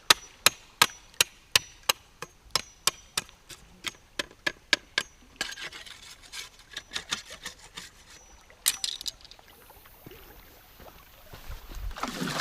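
A blade chopping at bamboo in quick, even strokes, about three a second, shaping a point on the end of a bamboo paddle; after about five seconds it turns to rougher scraping and shaving of the bamboo, with a few more quick strokes, then it goes quieter.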